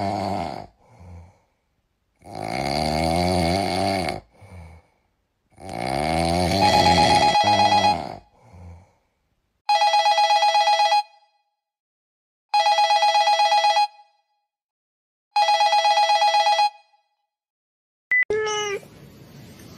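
Telephone ringing in trilling electronic bursts: three clear rings in the second half, each about a second and a half long and spaced about three seconds apart, which signal an incoming call. Before them come two longer sounds with wavering pitch, and near the end a short gliding sound.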